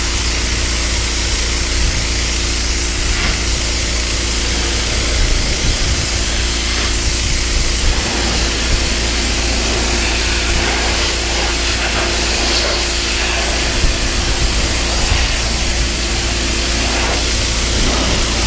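Pressure washer jet blasting mold and mildew off weathered wooden deck boards: a steady hiss of spray against the wood, with the machine's steady hum underneath.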